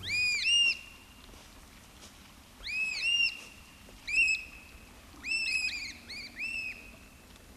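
Birds calling: short, clear, arched notes in clusters of two to four, with a pause of a second or so between clusters.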